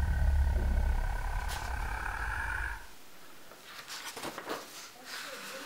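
A low rumble with a thin steady whine over it for about three seconds, cutting off suddenly, then soft paper rustling and handling as sketchbook pages are turned.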